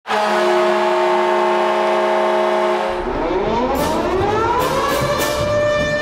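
RIT Tigers hockey goal horn blowing a steady, loud multi-tone chord for about three seconds. It then gives way to a tone sliding upward in pitch over a low rumble, with sharp hits coming in as goal music starts near the end.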